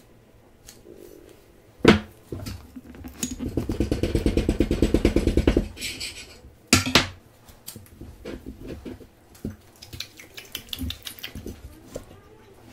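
Two metal spatulas chopping into a soft crepe on a plate, clattering against the plate. There is a sharp knock about two seconds in, then a fast run of chopping strokes for about three seconds and two hard knocks near the middle. Near the end comes softer squishing and clicking as a gloved hand squashes the crepe.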